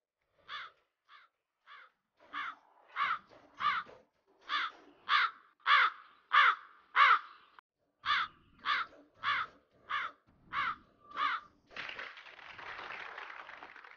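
Cartoon crow sound effect: about seventeen harsh caws in quick, even succession, with a short break about halfway. In the last two seconds it gives way to a burst of clapping sound effect.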